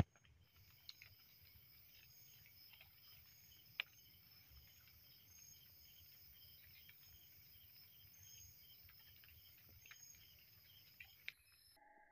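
Faint night insects, crickets, chirring steadily at a high pitch, with a few soft ticks and one sharp click at the start. The insect sound cuts off abruptly near the end.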